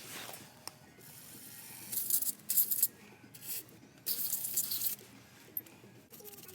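Four short bursts of hissing spray, the longest nearly a second, as from a spray nozzle used in cleaning a small engine's carburettor, with a few faint clicks between them.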